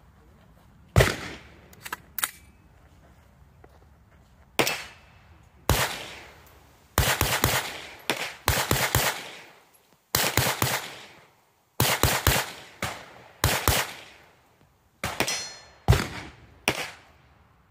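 Spikes Tactical AR9, a 9mm AR-pattern pistol, fired semi-automatically: a long string of sharp shots at an uneven pace, some single and some in quick runs of several, emptying a 15-round magazine.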